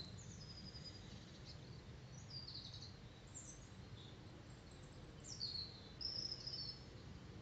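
Small songbirds chirping and trilling in short phrases, the clearest ones past the middle, over a low steady outdoor background noise.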